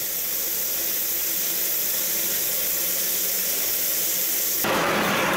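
Steady hissing rush around the stopped Darjeeling Himalayan Railway steam locomotive while it takes on water and coal. Near the end it gives way abruptly to a louder, fuller rushing noise.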